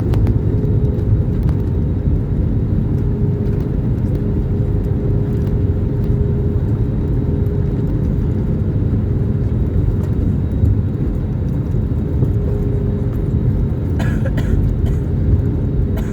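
Steady airliner cabin noise heard from inside the cabin: a low rumble with a faint, even engine hum. A few short clicks or rattles come about fourteen seconds in.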